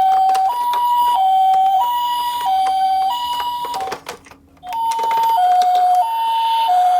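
Toy ambulance's electronic two-tone siren sounding the Japanese "pee-po" pattern, switching between a high and a low note about every two-thirds of a second. Clicks and rattles run over it. The siren cuts out for about half a second a little past halfway, then starts again.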